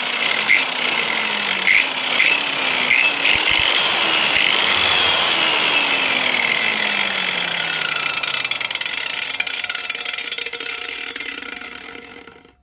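APT electric angle grinder running at full speed, with short sharp bursts about twice a second in the first few seconds. Its whine then glides slowly downward and fades away near the end as the motor and disc spin down.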